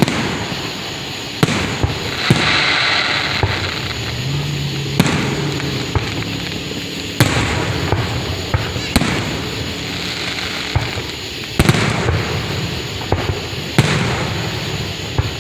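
Fireworks show: a continuous rumble of booms with a sharp bang about every two seconds, and a brief rush of hiss about two seconds in.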